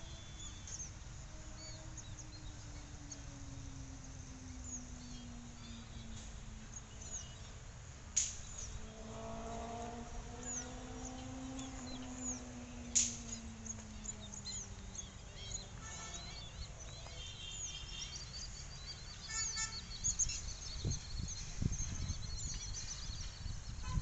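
Many birds chirping and calling, with a low distant engine drone that slowly falls and rises in pitch through the first half. There are two sharp clicks, and low rumbling bumps near the end.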